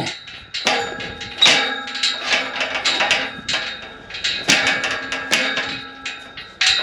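Metal gate hardware being hammered to break it free of ice: a run of sharp clanks, roughly two a second with short pauses, each ringing briefly.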